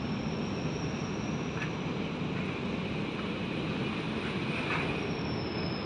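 Steady drone of a running vehicle engine with a faint high whine above it.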